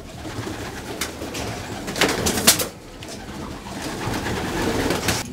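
Racing pigeons cooing in their loft, a low wavering murmur, with a short loud rustle about two seconds in.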